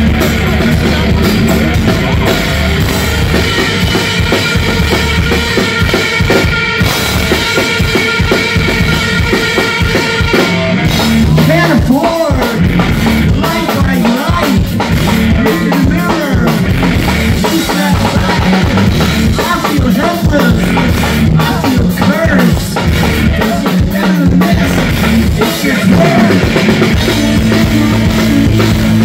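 Rock band playing live and loud, electric guitars over a drum kit. About ten seconds in, long held chords give way to busier drumming.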